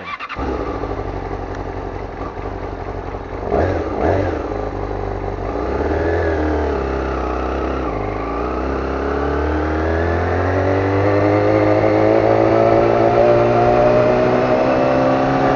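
Yamaha YZF-R6 600 cc inline-four engine pulling the motorcycle along at street speed, with two short revs about three and a half and four seconds in. Through the second half the engine note climbs steadily as the bike accelerates.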